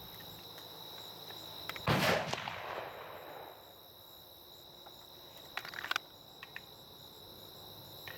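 Crickets chirring steadily, with one loud sharp bang about two seconds in whose echo rolls away over a second or so, and a few small clicks around six seconds.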